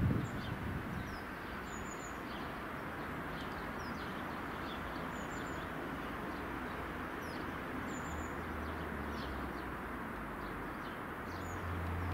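Small birds chirping, with a short high three-note call repeating about every three seconds, over steady background noise. A low steady hum comes in near the end.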